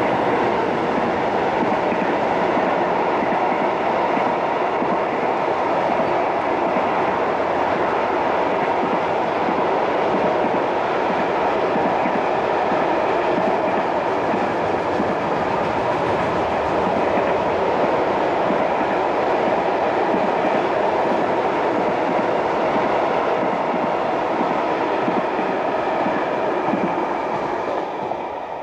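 Freight train wagons rolling past on the rails, a steady noise of wheels on track that fades away near the end as the last wagon goes by.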